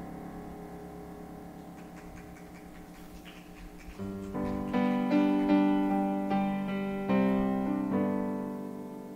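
Electric piano: a held chord slowly fades away, then about four seconds in a new series of struck chords begins, opening the next worship song.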